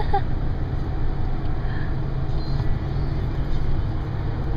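Ford F-350 pickup cruising on a two-lane road while towing a fifth-wheel camper, heard from inside the cab: a steady low rumble of engine and tyre noise.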